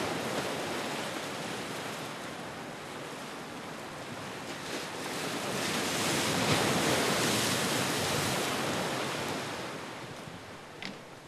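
Sea surf washing over a rocky shore, swelling to its loudest about six seconds in and dying away near the end.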